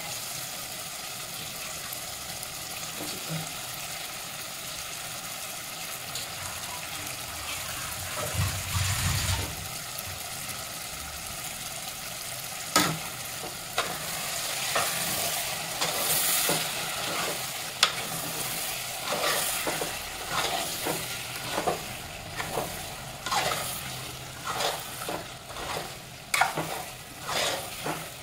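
Chicken pieces sizzling in hot masala in an aluminium pot while a steel spoon stirs and scrapes them. A couple of sharp clinks of the spoon on the pot come about halfway through, and the scraping strokes grow regular, about one a second, toward the end.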